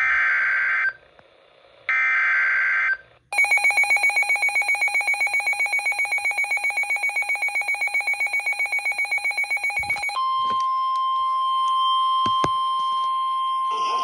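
Midland NOAA weather radio receiving a severe thunderstorm warning: two harsh, buzzing data bursts of about a second each (the end of the digital SAME alert header), then the radio's own rapidly pulsing alarm beep for about seven seconds, then the steady single-tone NOAA weather radio alert tone.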